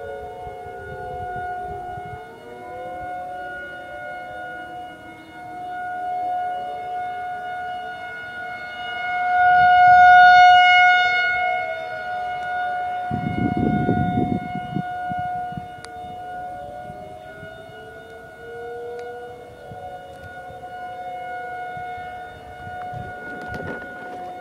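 A nearby Federal Signal 2001 outdoor warning siren sounds a steady alert tone that swells and fades in loudness, loudest about ten seconds in. Under it, more distant 2001 sirens wail up and down in the attack signal. A brief low rumble comes about thirteen seconds in.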